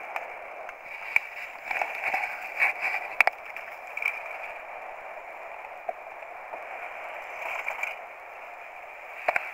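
Steady hiss picked up by a helmet-mounted action camera's microphone while riding a chairlift, with scattered sharp clicks and knocks of the helmet and camera mount.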